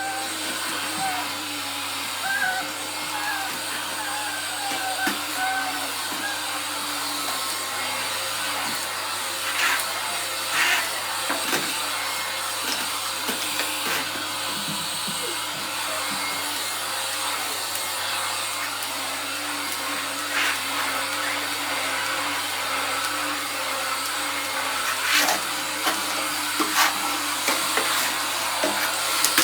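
Vacuum cleaner running steadily, with a few sharp knocks now and then.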